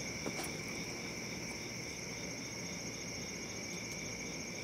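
Steady chorus of night insects: two unbroken high trills with a softer, evenly pulsing call between them.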